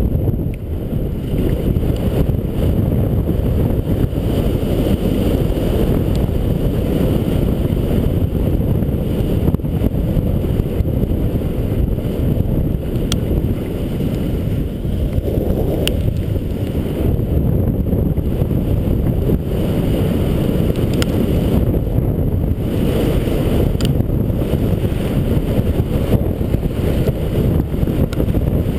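Steady low rumble of wind buffeting the action camera's microphone as it moves downhill through snow.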